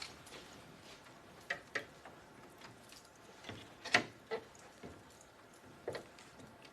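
Irregular light clicks and taps at uneven intervals, a few of them sharper, as of small hard objects being handled.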